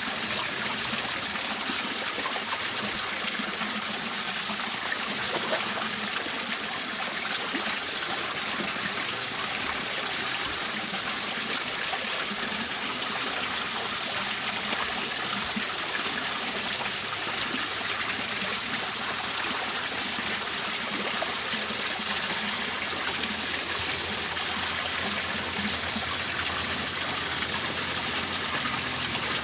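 Steady rush of water running into a fish pond.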